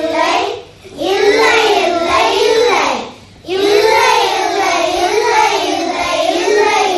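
Young schoolchildren singing a song, in phrases with short pauses for breath about a second and about three seconds in.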